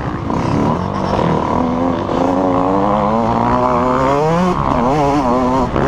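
Motocross dirt bike engine heard close up from on the bike, revving hard with its pitch climbing and dropping as the throttle opens and closes, with several quick up-and-down swings in the second half.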